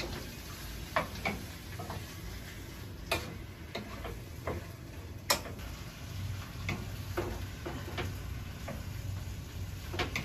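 Wooden spatula knocking and scraping in a frying pan as stir-fried vegetables and boiled somen noodles are mixed, in irregular clicks with the sharpest about halfway through, over a faint sizzle.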